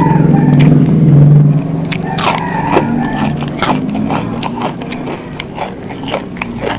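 Eating sounds: biting and chewing, with many short clicks and scrapes of food being handled on a plate. A passing motor vehicle's steady engine hum is loud for the first second and a half, then fades.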